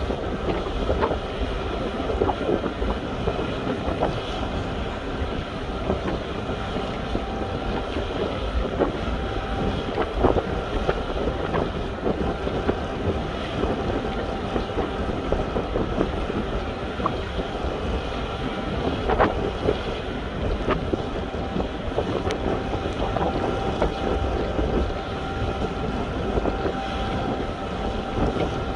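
Steady drone of a ship's machinery with several steady tones, under wind on the microphone; a few faint clicks and knocks stand out now and then.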